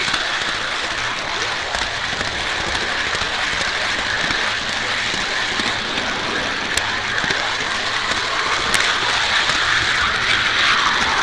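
Steady running noise of an MTH R40 model subway train's motors and wheels on the track, heard from a camera riding on the front of the train, with a few sharp clicks.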